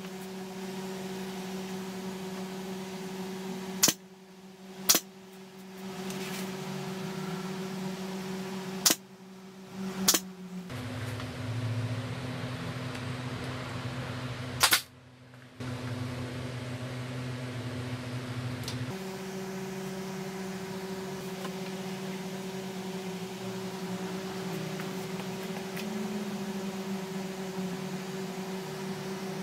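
Keyang pneumatic nailer firing five times into pine frame joints: sharp cracks in two pairs about a second apart, then a single one. A steady motor hum runs underneath, dropping lower in pitch for several seconds in the middle.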